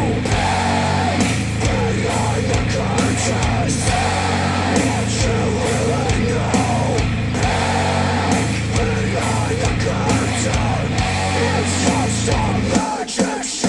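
Heavy rock music played back through Wharfedale Denton 80th bookshelf speakers driven by a Denon AVR-X1600H receiver; the bass drops out briefly near the end.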